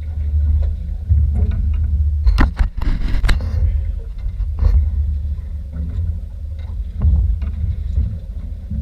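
Low, steady rumble of a fishing boat under way, wavering in level, with a brief burst of knocks and clatter about two and a half seconds in.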